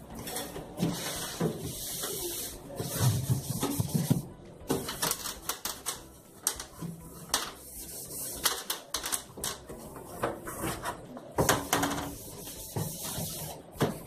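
Irregular clatter of light clicks, taps and knocks: items and fittings of a refrigerator being handled, moved and set down while it is cleaned out.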